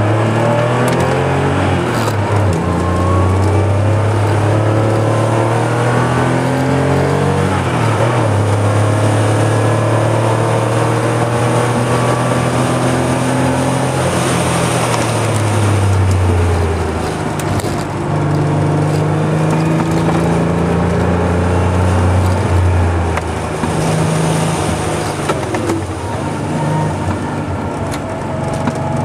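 Porsche 911 Carrera 3.2's air-cooled flat-six engine, heard from inside the cabin, pulling hard through the gears on a timed run: the engine note climbs, drops back at each gear change, and climbs again several times, easing off and on for corners.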